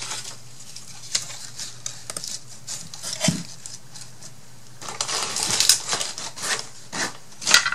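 Scattered light clicks, taps and rustles of small craft items being picked through and handled, with a busier stretch of rustling about five seconds in and a sharp click near the end.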